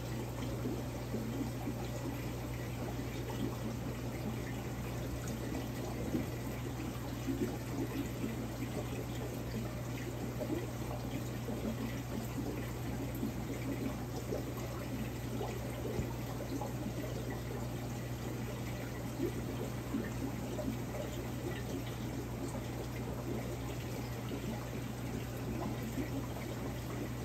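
Aquarium water circulating: a steady trickling and bubbling of moving water over a constant low pump hum.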